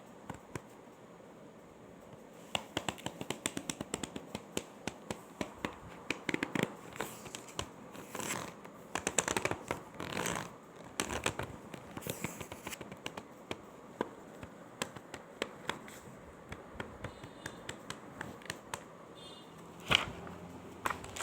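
Paper pages of a book being handled: many quick clicks and crackles as pages are flicked and turned, with stretches of riffling rustle in the middle, and one louder sharp snap near the end.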